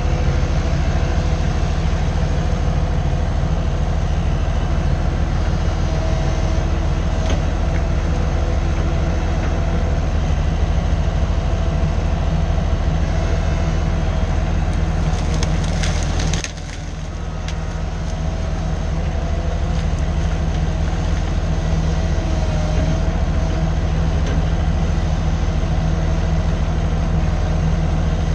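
A diesel engine running steadily with a low, continuous drone. About sixteen seconds in, the sound drops suddenly and then builds back up over a couple of seconds.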